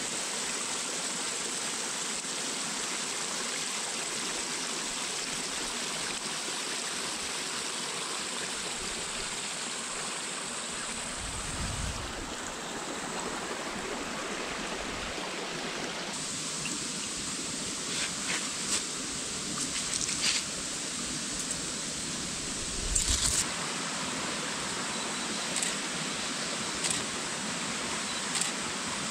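Small stream of water running, a steady rushing hiss. A few light clicks and low knocks come over it in the second half.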